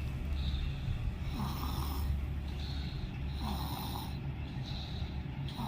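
A congested baby breathing noisily through mucus in the nose and throat, with a snoring, rattling sound on each breath about every two seconds. This is the gurgling sound of phlegm built up during a cold.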